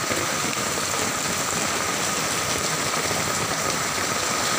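Heavy typhoon rain pouring steadily, a continuous even hiss.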